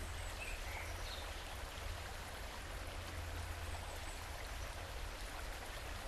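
Steady outdoor background noise: an even rushing hiss over a low rumble, with a few faint high chirps about half a second to a second in.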